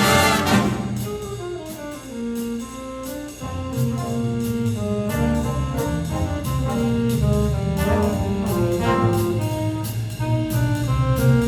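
Big band playing swing jazz, with saxophones, trumpets and trombones. A loud brass ensemble hit comes right at the start, then horn melody lines, with the bass and rhythm section coming in strongly about three and a half seconds in.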